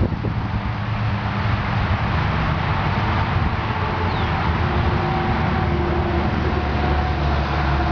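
Steady low engine rumble of a motor vehicle, with a few faint tones drifting slightly in pitch, growing a little stronger in the second half.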